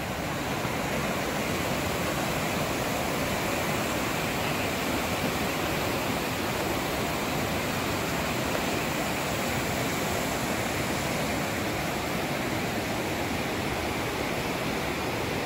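River rapids rushing over rocks below a railroad trestle: a steady, unbroken rush of water.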